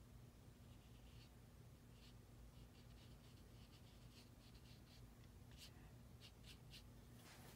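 Faint scratching of a small round brush dabbing watercolour paint onto paper: a series of short strokes over a low steady room hum.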